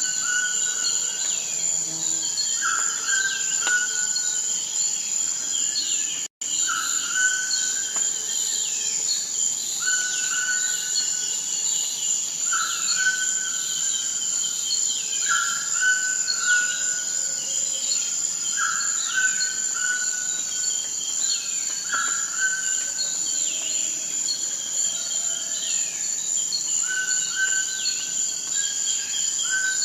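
Forest ambience: a steady high-pitched insect trill under birds calling, one bird repeating a short call every two to three seconds while others give quick falling chirps higher up. The sound drops out for an instant about six seconds in.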